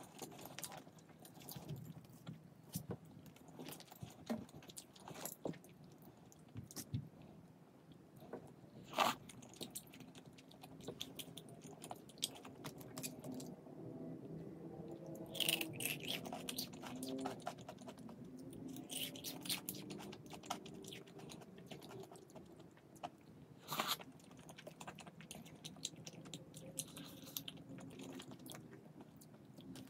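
Close-up eating sounds: chewing and biting food with crisp crunches and many short clicks and crackles.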